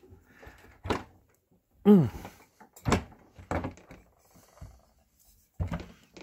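Metal hinge of a GE oven door being worked and handled: a handful of separate clicks and clunks, one every second or so, with a short falling pitched sound about two seconds in.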